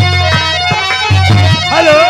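Live Bhojpuri folk band music: a harmonium holds steady notes over a quick, regular dholak drum beat, and a voice starts singing near the end.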